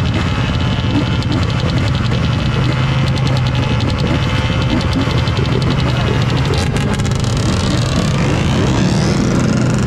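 A motor vehicle engine running steadily, with a low hum and fast pulsing, then a sound that rises in pitch over the last couple of seconds.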